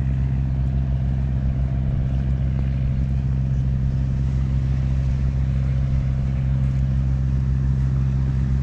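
Engine droning steadily at an even speed, a constant low hum with no change in pitch or loudness.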